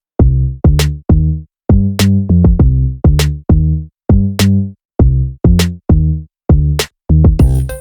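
Background music: an electronic track with a steady drum-machine beat and short bass-heavy synth notes.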